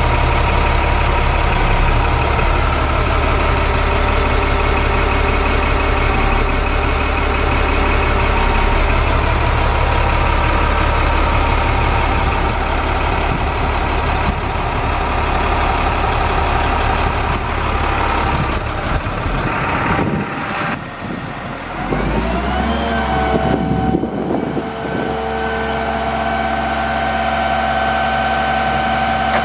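GMC C7500 digger truck's engine idling steadily, heard from inside the cab. After about twenty seconds it gives way to a steady whine with several held tones, with a brief rise in pitch, as the hydraulic outrigger leg is lowered.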